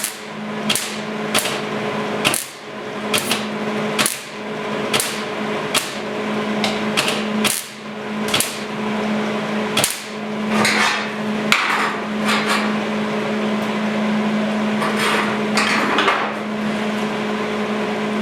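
Hammer blows on the Bronco's metal bodywork, a steady run of about one strike a second that becomes more irregular partway through, over a steady hum.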